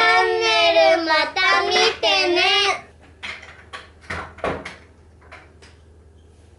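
A young girl singing loudly in a high voice, stopping after nearly three seconds. A few light clicks and knocks follow.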